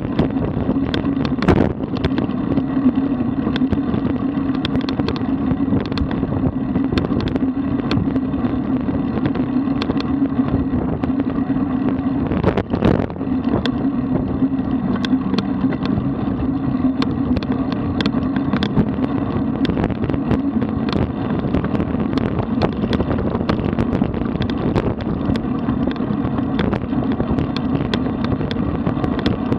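Riding noise of a road bicycle picked up by the rider's camera: a steady hum over rushing noise, with many small clicks and rattles and a brief drop about thirteen seconds in.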